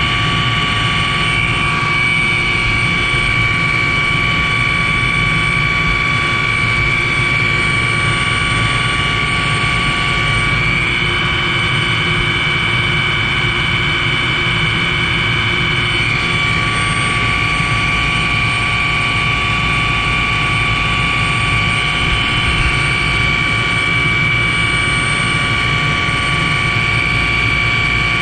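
Helicopter in flight, its engine and rotor noise loud and steady, with a constant high-pitched whine over it.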